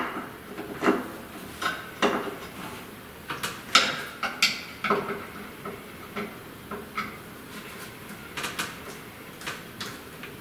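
Irregular clicks and light metallic knocks as a hand screwdriver tightens the screws of a metal ceiling fan bracket in an electrical box, and the tool and parts are handled.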